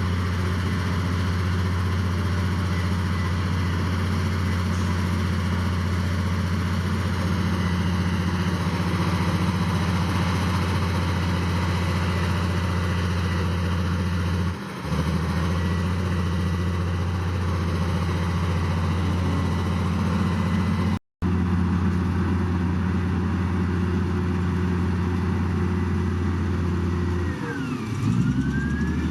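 Heavy diesel engine of earth-moving machinery running steadily. The audio cuts out briefly about 21 seconds in, and near the end the engine note dips and climbs back up.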